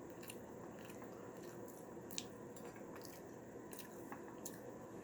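Faint close-up eating sounds: a person chewing, with scattered light mouth clicks and a sharper click about two seconds in.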